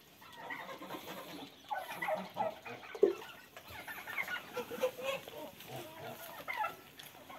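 Puppies lapping and slurping food from a metal bowl, with many short clucking calls over it and one sharp knock about three seconds in.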